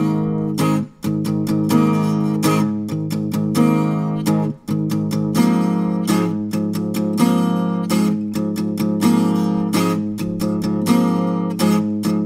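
Guitar playing strummed chords in a steady rhythm, with two brief breaks in the strumming: about a second in and about four and a half seconds in.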